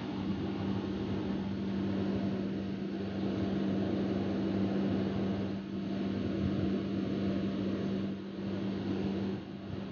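Steady hum of an electric motor running, with a strong low tone under a hiss, dipping briefly a few times.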